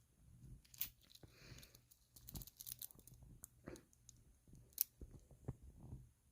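Faint handling noise from a wristwatch being turned over in the hand: a scatter of small clicks and light rustles.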